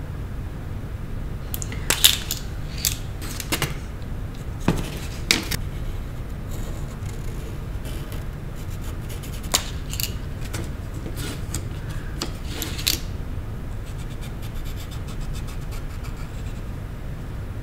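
Scattered light clicks, taps and scrapes of painting supplies being handled and set down, about eight in all, the sharpest about two seconds in, over a steady low hum.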